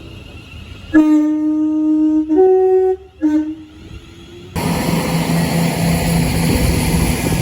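Train horn sounding three blasts: a long low note about a second in, a short higher note, then a short low note. A second or so later the train passes close by with a loud, steady rumble.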